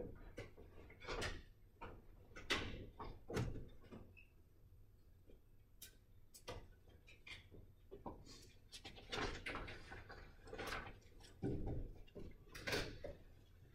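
Room noise in a classroom: scattered knocks, clicks and rustles from people moving about, with a dozen or so sharper knocks.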